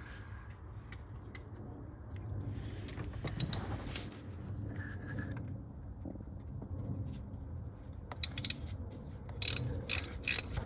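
Hand socket ratchet clicking in short bursts as it backs out the water pump bolts on a 4.7 L Dodge V8, with the loudest runs of clicks near the end.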